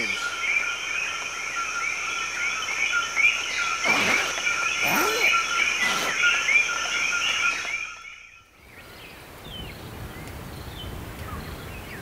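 Night chorus of coquí frogs, many overlapping rapid chirped calls over a steady high insect hiss. It cuts off about eight seconds in, giving way to a faint, quieter outdoor ambience.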